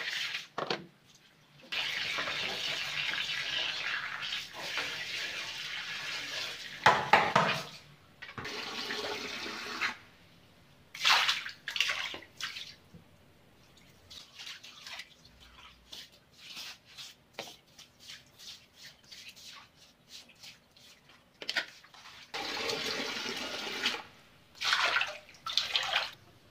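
Tap water running steadily into a plastic basin and splashing over dishes, stopping about ten seconds in. After that come short splashes and soft knocks of water and dishes on a wet tiled floor, and near the end two more short runs of water.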